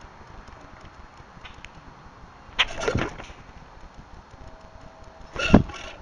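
Common grackles moving at a tube bird feeder right beside the microphone: two brief knocks and flutters, about two and a half and five and a half seconds in, the second the louder.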